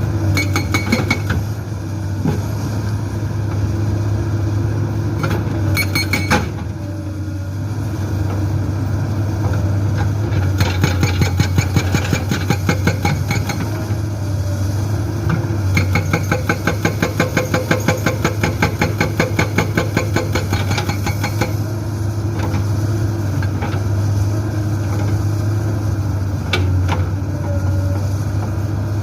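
Komatsu PC200-8 excavator's diesel engine running steadily while its Soosan SB81 hydraulic breaker hammers rock in several bursts of rapid, evenly spaced blows, the longest lasting about six seconds in the second half.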